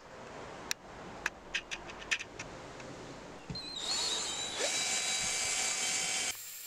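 Cordless drill spinning a small wire wheel brush against the rusty steel of a mattock head, scouring off rust. The drill whines under a loud, harsh scratching that cuts off suddenly near the end. Before the drill starts, a few sharp clicks.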